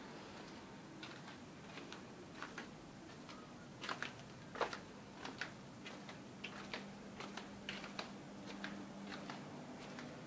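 Footsteps walking on a concrete alley floor: light, sharp clicks, about two to three a second and unevenly spaced, with a faint steady hum coming in about halfway through.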